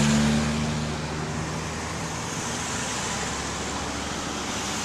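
Road traffic passing, a steady hiss of tyres and engines. It is loudest at the start as a vehicle goes by, its low engine hum fading out after about a second and a half.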